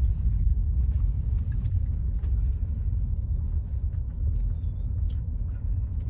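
Steady low rumble of a car on the move: engine and road noise.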